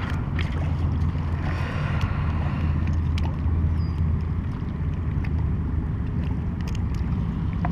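Steady low rumble of wind buffeting the GoPro's microphone, with a few light clicks.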